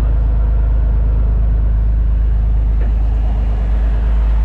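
Boat engine running steadily: a loud, even, low drone.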